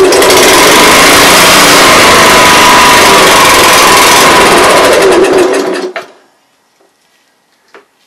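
Honda Harmony 215 lawn mower's small four-stroke engine running loudly on choke just after being pull-started, then dying out about six seconds in. Its carburetor is partly clogged from years of sitting, so it won't keep running without the choke.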